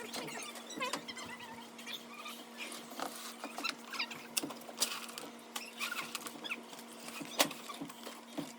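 Irregular scraping, clicking and rustling of bedding and droppings being cleaned out of a rabbit hutch, over a steady low hum.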